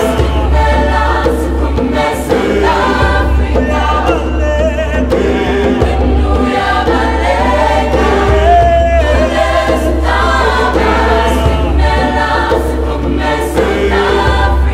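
Background music: a choir singing over a steady deep bass.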